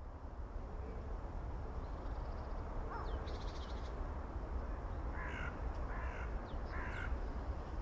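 A crow cawing three times, over a steady low rumble of woodland ambience, with a fainter higher bird call a little earlier.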